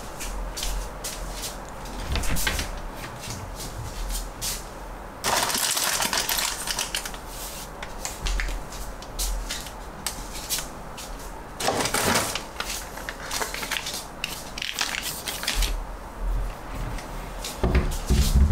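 A kitchen wall cabinet's lift-up door is worked while things on its shelf are handled, giving many small clicks and rattles and a few louder rustles. The door shuts with a solid knock near the end.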